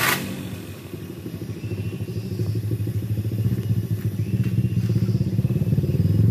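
Daihatsu Gran Max pickup's engine running just after being started, getting steadily louder as it revs.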